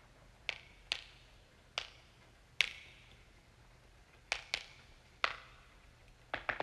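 Joints cracking: about ten short, sharp pops at irregular intervals, the loudest a little over halfway through the first half, with a quick pair later and a rapid cluster of three near the end.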